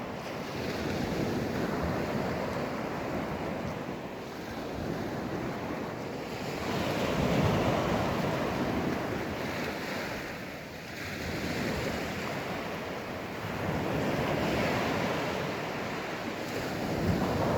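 Sea surf breaking and washing up the beach, swelling and fading every few seconds, with wind buffeting the phone's microphone.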